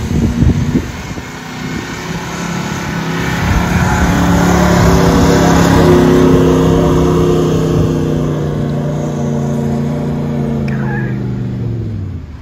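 Engine of a four-wheel-drive ute under load as it tows an off-road caravan through soft sand, growing louder to a peak as it passes close by mid-way and easing off near the end. A few knocks near the start.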